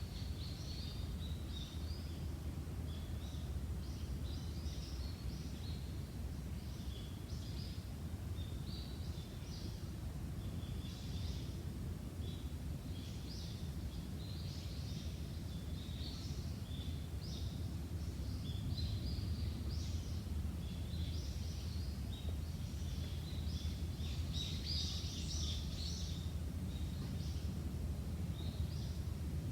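Small birds chirping in many short, high calls, busiest about 25 seconds in, over a steady low rumble.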